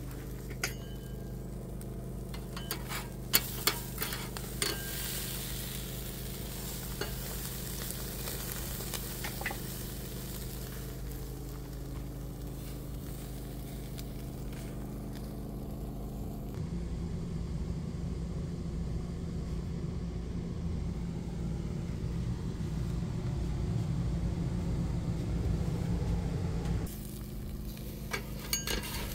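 Hamburger patties sizzling on a small charcoal grill, over a steady low hum. A few light clicks and knocks come in the first few seconds. Past the middle the sound turns louder and rougher for about ten seconds.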